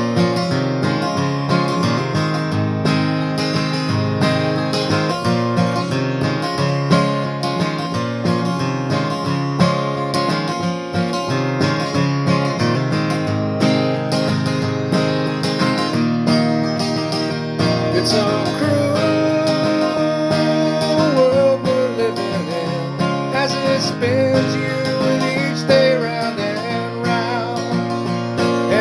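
Instrumental break of a song: acoustic guitar strumming chords. A higher lead melody with bending notes comes in about two-thirds of the way through.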